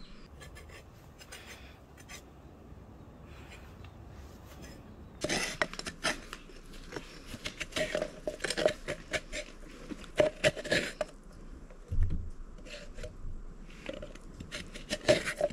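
Coconut meat being scraped out of the shell in a quick, irregular run of scratchy strokes, starting about five seconds in, with a low thud near twelve seconds.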